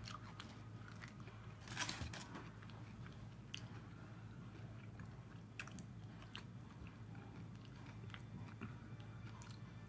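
Someone biting into and chewing a Dubai chocolate bar with a crunchy filling: one louder crunching bite about two seconds in, then faint, scattered chewing clicks.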